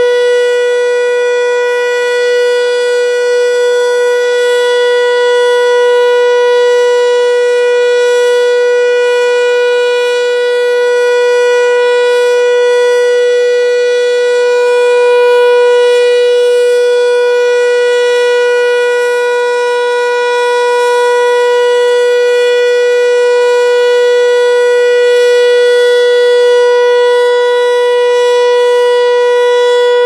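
ASC T-121 outdoor warning siren sounding its steady alert signal: one loud, unbroken tone at a fixed pitch, swelling and dipping gently in loudness.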